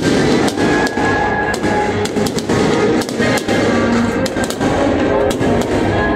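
Fireworks going off in quick, irregular bangs and crackles, with music playing at the same time.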